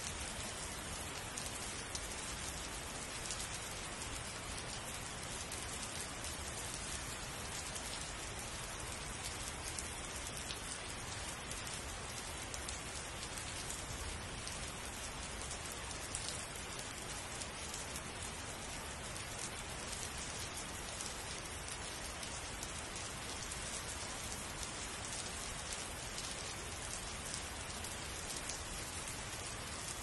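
Steady rain falling: an even hiss flecked with many small ticks of drops, unchanging throughout.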